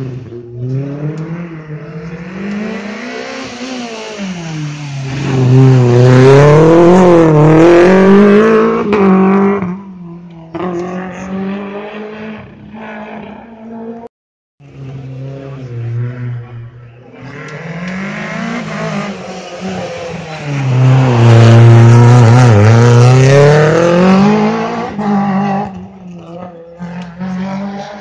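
Two rally cars in turn, each revving hard through a hairpin: the engine note rises and falls with lifts, braking and gear changes, grows loudest as the car passes, then fades. A brief silence at a cut about halfway separates the two passes.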